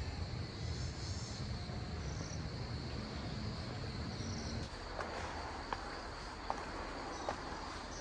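Insects chirring steadily in high, pulsing tones, over a low rumble that stops about halfway. After that, footsteps on stone paving fall a little under a second apart.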